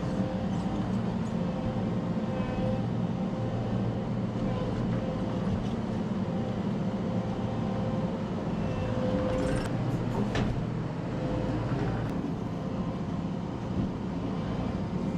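Track loader engine running steadily under hydraulic work, a low drone with a held whine. A few short knocks come about nine to ten seconds in.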